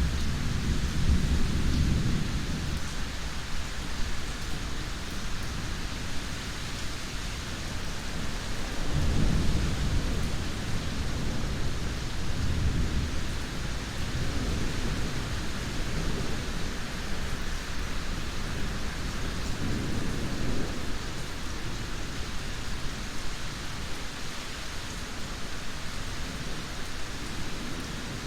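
Steady heavy rain with low thunder rumbling several times, swelling near the start, about nine and twelve seconds in, and again around twenty seconds.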